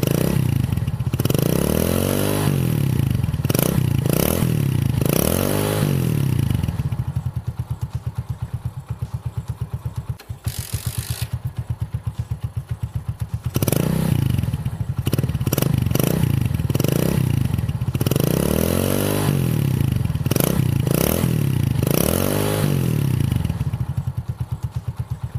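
Hero Honda Splendor's single-cylinder four-stroke engine being revved in quick throttle blips, each rising and falling in pitch. About six seconds in it settles to a steady, evenly pulsing idle, is blipped again repeatedly from about fourteen seconds, and drops back to idle near the end.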